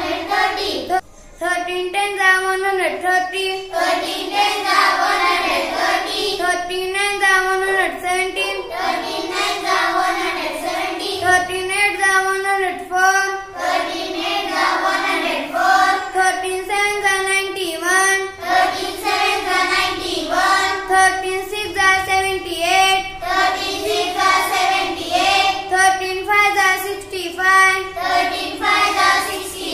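A girl chanting the 13 times table in English in a steady sing-song, with a short pause about a second in.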